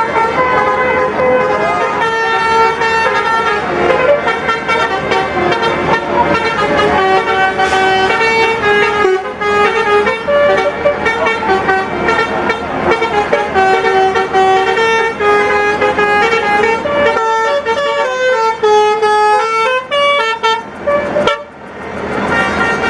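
Basuri musical bus horn ('telolet') playing a fast tune of many short stepped notes. There is a brief dip about 21 seconds in before it goes on.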